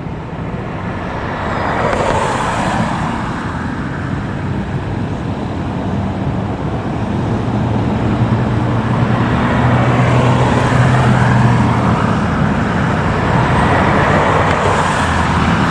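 Road traffic passing close by: several vehicles go past one after another, the loudest about two seconds in, around ten seconds and near the end, with a heavier vehicle's low engine hum in the middle.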